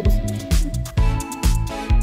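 Background music with a steady beat of about two thumps a second over a bass line and sustained chords.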